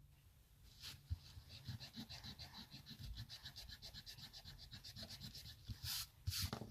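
A small novelty mini eraser rubbed quickly back and forth over pencil writing on paper, faint rhythmic strokes several a second, with two louder swipes near the end.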